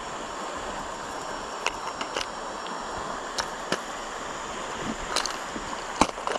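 Steady rushing outdoor noise with about six sharp clicks scattered through, the loudest near the end.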